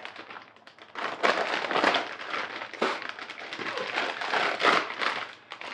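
Package wrapping crinkling and rustling as a parcel is unwrapped by hand, a dense crackle starting about a second in.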